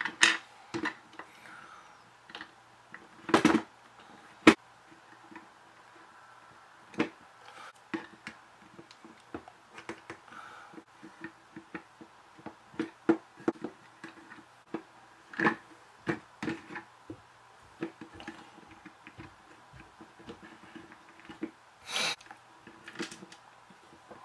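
Irregular small clicks and taps of tiny plastic toy pieces being handled and set into a plastic Polly Pocket compact playset, with a few sharper knocks among them.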